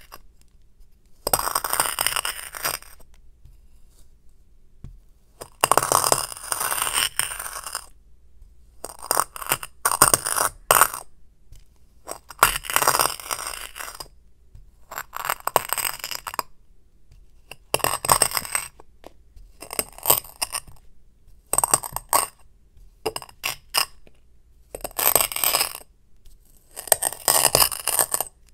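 Moldable sand crunching and grating between two glass dishes as the upper dish is pressed and ground down into it, about ten gritty strokes each lasting around a second, with short pauses between.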